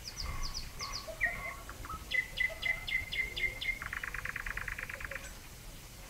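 Nightingale singing. One phrase of quick high notes is followed by a run of repeated downward-sweeping notes, about five a second, and ends in a fast rattling trill that stops about five seconds in.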